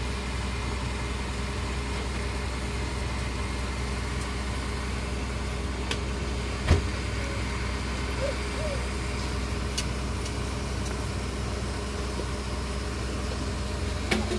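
A motor vehicle's engine idling with a steady low hum, and a single sharp knock about seven seconds in.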